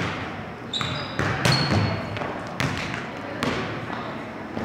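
Volleyball being served and bouncing on a gym floor: a series of sharp slaps and thumps, about one a second, echoing around a large gym, with a brief high squeak about a second in.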